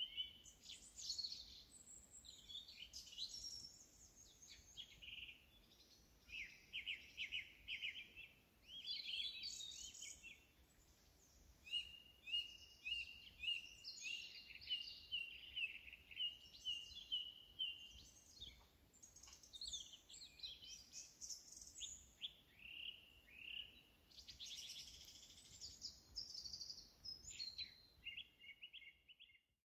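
Small songbirds singing and calling: a continuous run of high chirps, trills and short warbled phrases, one bird after another, cutting off abruptly at the very end.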